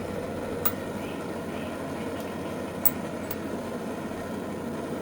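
Steady low hum and hiss, with a few faint ticks: one about a second in and two near the three-second mark.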